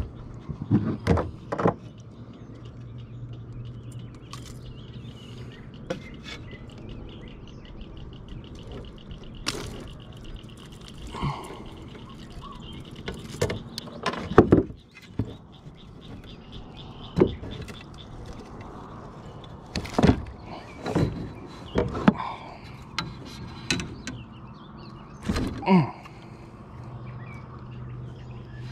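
Irregular knocks, clatters and rustles of a bass and a jointed swimbait being worked loose from a landing net's mesh by hand, with the fish and lure bumping the plastic kayak hull.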